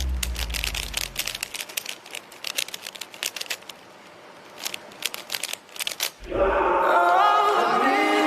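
Rapid, irregular clicking of a 3×3 Rubik's cube being turned, with a low music note fading out in the first second or two. About six seconds in, loud music with held melodic notes comes in.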